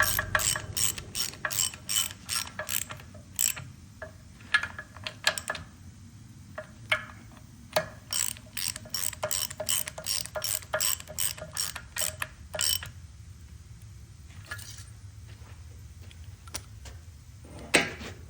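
Ratchet wrench clicking as it is swung back and forth on a bolt, in quick runs of about five clicks a second with short pauses between runs, the clicks thinning out near the end.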